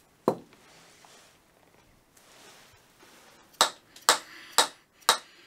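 A single sharp metallic ping with a short ring, then from about three and a half seconds in, a row of evenly spaced sharp taps on metal, about two a second.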